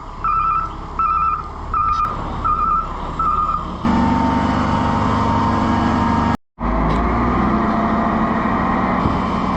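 Dumpster truck's reverse alarm beeping, five beeps in the first three and a half seconds. Then a heavy truck engine runs loudly.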